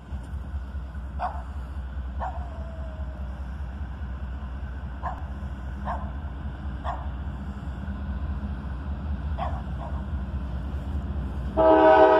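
Diesel locomotive's air horn starts sounding loudly near the end, a sustained chord of several notes, as the train approaches the grade crossing. Before it, a dog barks several times, single barks spread irregularly, over a steady low rumble.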